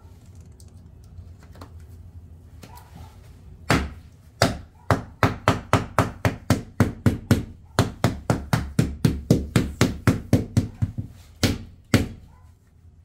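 White rubber mallet tapping a newly laid wood floor plank down into its adhesive: a quick run of sharp taps at about three to four a second, starting about four seconds in and stopping near the end.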